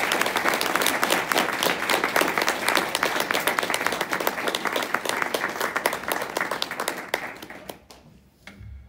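A small audience applauding at the end of a song, with one pair of hands clapping close by. The clapping thins and dies away about seven to eight seconds in, followed by a soft low thump just before the end.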